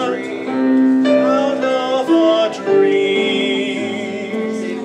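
Singing with piano accompaniment: a voice holding long, wavering notes over sustained piano chords.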